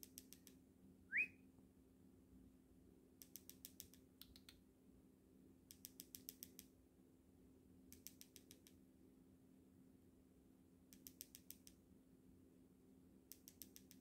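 Cockatiel gives one short, rising whistle about a second in. Quiet runs of rapid clicking recur every two seconds or so, over a steady low hum.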